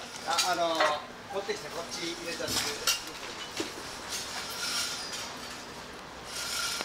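Street ambience: passers-by talking briefly in the first second or so, then scattered light clinks and clicks over a steady background hiss.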